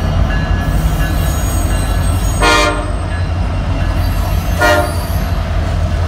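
Several Norfolk Southern diesel locomotives passing close by under power, with a steady heavy low engine rumble. A locomotive horn sounds two short blasts about two seconds apart, a little before the middle and again near the end.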